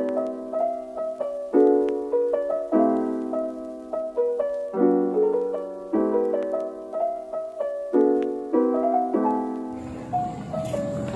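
Background music: a soft piano melody with gently struck chords, with a steady hiss coming in about ten seconds in.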